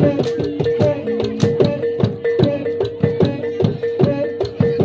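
Javanese Reog / jaran kepang accompaniment music played through a sound system: fast drum strikes and clacks in a steady rhythm over a sustained held melody note with shifting notes around it.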